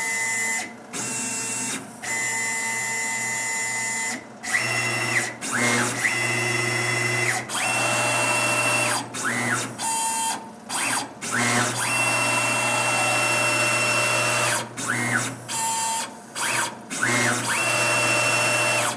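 Tormach PCNC 770 CNC mill's stepper-driven axes making a string of short and long rapid moves during an automatic touch-probe cycle that finds the centre of the box. Each move is a whine that rises in pitch as the axis speeds up and falls as it slows, with brief pauses between moves.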